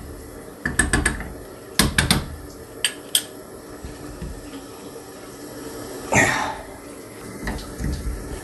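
Metal clinks and clicks of an adjustable wrench and groove-joint pliers against a chrome under-sink shutoff valve as it is worked closed. The valve is stiff from not having been turned in years. There is a short hiss about six seconds in.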